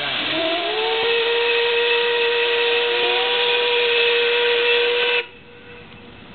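The Skibladner paddle steamer's steam whistle blows one long blast over a hiss of steam. Its pitch slides up during the first second, then holds steady for about four more seconds before it cuts off suddenly.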